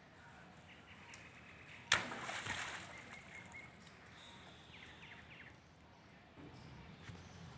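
A sudden splash about two seconds in, trailing off over about a second, from monkeys moving in a shallow muddy pond.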